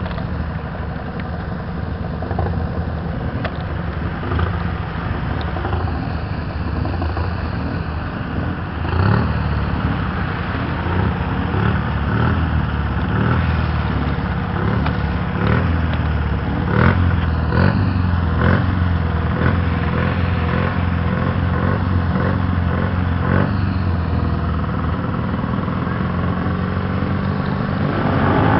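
Engines of several quad bikes and motorcycles running together at low revs, with short revs now and then, growing a little louder from about nine seconds in.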